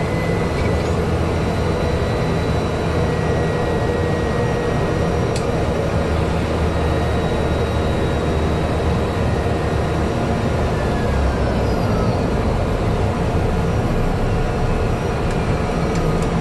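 Cessna 208 Grand Caravan's single turboprop engine and propeller running at taxi power, heard inside the cockpit: a steady drone with a thin high turbine whine over it.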